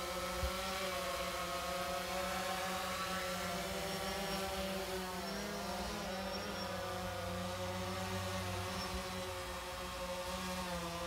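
DJI Phantom quadcopter in flight: the electric motors and propellers give a steady multi-tone buzz. Its pitches waver and shift against one another around the middle as the motors change speed.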